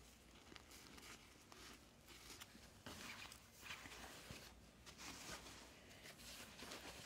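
Near silence with faint, intermittent scratching and rustling: soft short strokes scattered throughout.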